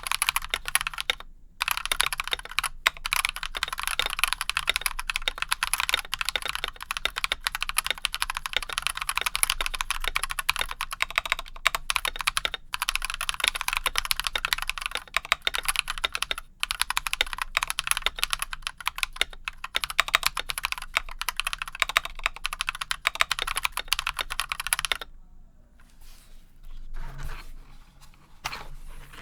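Steady, fast typing on a stock Akko x Monsgeek MG108 mechanical keyboard fitted with Akko Cream Yellow linear switches, a dense run of key clacks. The typing stops about 25 seconds in, and only a few faint clicks follow.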